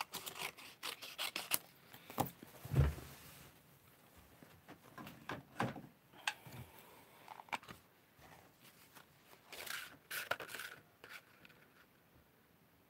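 Stamped card stock being handled and set down on a craft mat: a quick run of light paper clicks and rustles, a soft thump about three seconds in, then scattered taps and a brief rustle near the end.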